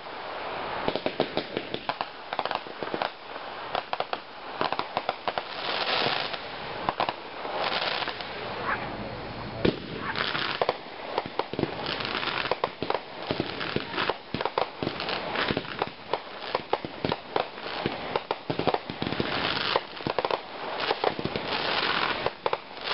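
Fireworks display: many sharp bangs from aerial bursts in quick succession, with several stretches of dense crackling.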